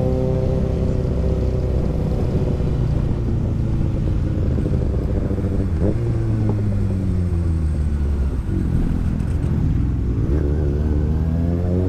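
Motorcycle engine under way, its revs falling for the first few seconds as it slows, with a change in pitch about six seconds in, then climbing again near the end as it accelerates.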